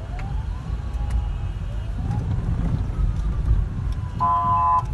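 Road traffic rumbling, with a siren wailing in rising and falling sweeps. A short, loud vehicle horn honk comes near the end.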